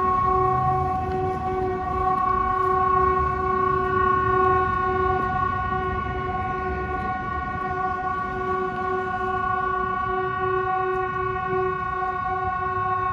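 Swedish civil defence sirens sounding the all-clear, one long steady tone that holds its pitch throughout: the pneumatic MKT 75/370 together with the CA 370 electroacoustic siren.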